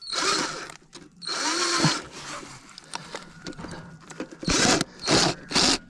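Power drill run in five short bursts, each under a second, the motor spinning up and winding down with each pull of the trigger.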